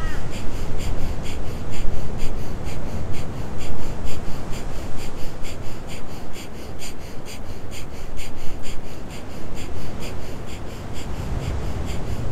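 Breath of fire: rapid, rhythmic forceful exhales through the nose, about three a second, over a low rumbling noise.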